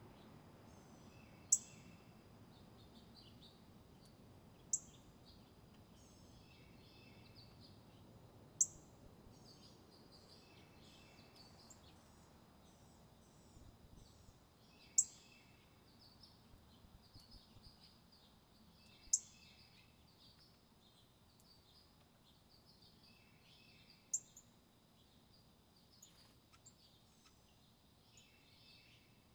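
Wild songbirds calling: a loud, sharp, falling high call six times, several seconds apart, with softer twittering between. A faint steady high tone runs underneath.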